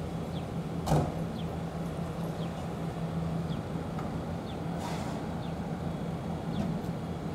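Steady outdoor background noise with an even low hum, a short knock about a second in and faint, short high chirps at intervals.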